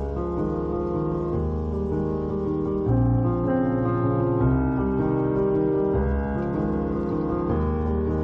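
Background music: gentle piano with sustained notes and a steady low bass.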